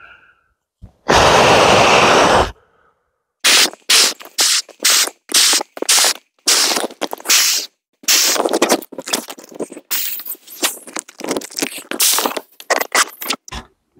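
Breath blown by mouth into the valve of an inflatable camping sleeping pad, one breath after another. One long blow comes about a second in, then a run of shorter puffs.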